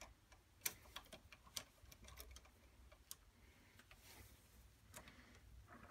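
A few faint, scattered metallic clicks from a T-handle hex key working a clamping screw in an aluminium block, tightening it around a rotary tool's handpiece.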